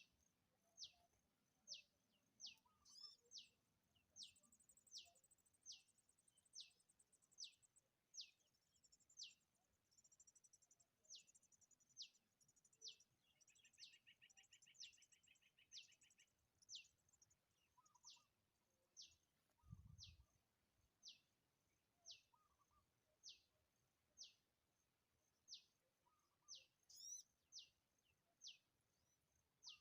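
A small bird calling over and over: a thin, high note that slides steeply down, repeated about once a second, with a short buzzy trill about halfway through and fainter high twittering early on. A single low thump comes a little past the middle.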